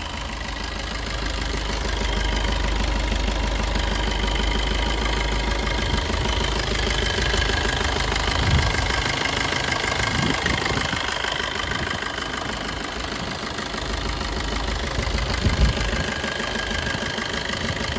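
Maruti Suzuki Swift Dzire VDi's 1.3-litre DDiS four-cylinder turbo-diesel engine idling, heard with the bonnet open.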